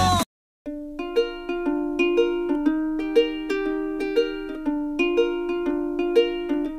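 Background music: a busy dance-pop track cuts off just after the start, and after a short silence a light plucked-string tune begins, with evenly paced notes.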